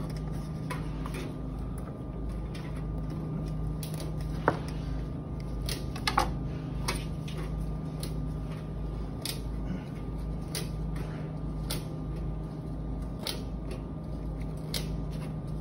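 Steady kitchen hum with scattered light knocks and clicks from a chef's knife on a plastic cutting board and a metal spoon scooping the seeds out of a cantaloupe half.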